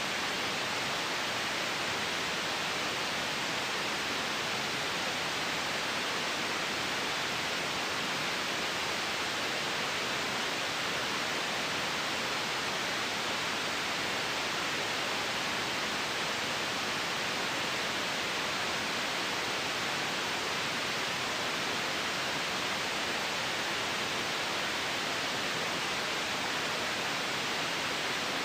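Steady synthetic white noise: an even, unchanging hiss, strongest in the upper-middle range and thin in the bass.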